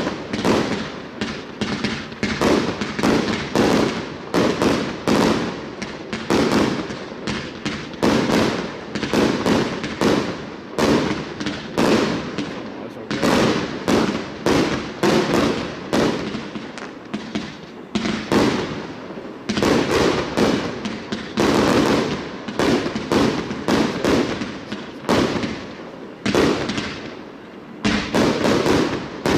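A 100-shot, 30 mm straight-up consumer fireworks cake firing in rapid succession: shot after shot of launches and bursts, about three a second, without a break.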